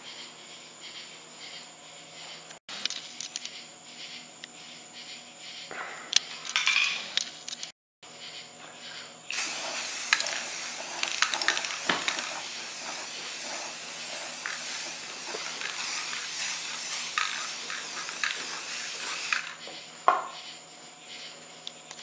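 Aerosol spray-paint can spraying in one steady hiss for about ten seconds, starting about nine seconds in. Short clicks and clatter come before it.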